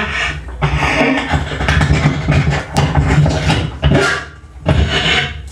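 Loud, choppy vocal noises and mouth sounds in a beatbox-like stream, with a brief dip about four seconds in.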